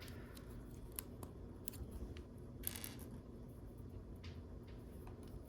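Faint, scattered clicks of small plastic LEGO pieces being handled and set down, with a short rustle a little under halfway in.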